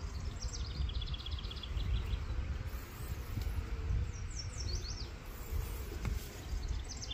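Honeybees buzzing around an open hive over a steady low rumble. A songbird sings a short trill of quick notes stepping down in pitch twice, about half a second in and again around four seconds in.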